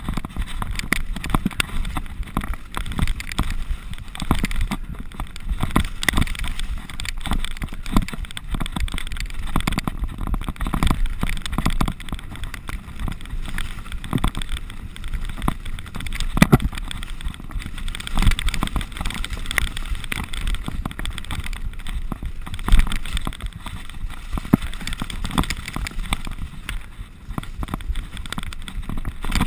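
Mountain bike running fast down a dirt singletrack: tyres rolling over the ground, with the bike rattling and knocking over bumps and roots throughout.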